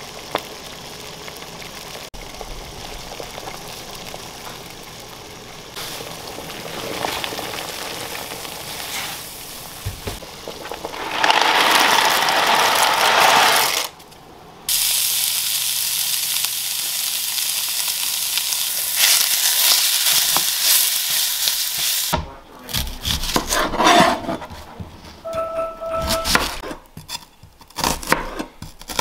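Water boiling hard in a large stainless steel stock pot, swelling to its loudest just before dry rotini is poured in, then a steady loud hiss. From about two-thirds of the way through, a chef's knife chops an onion on a plastic cutting board in quick uneven knocks, with a short beep in the middle.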